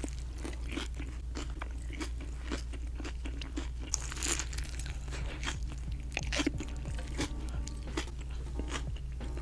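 Close-miked eating: biting into and chewing an In-N-Out double cheeseburger, with wet crunching and mouth clicks throughout and a bigger bite about four seconds in.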